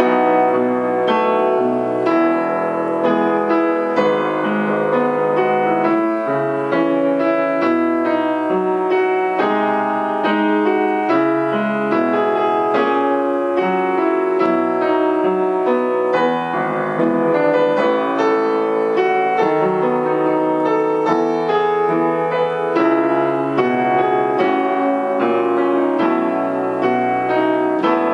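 Piano music, a steady run of notes and chords.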